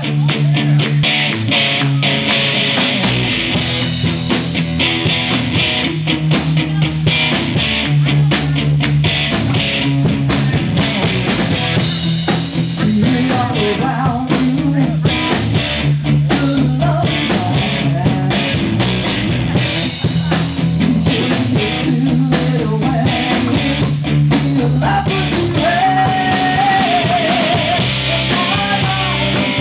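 Live band playing: electric guitar, electric bass and drum kit, with a woman singing lead vocals.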